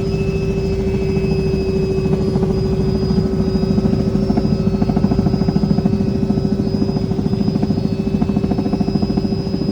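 Helicopter running steadily in flight: a fast, even rotor chop under a steady engine whine.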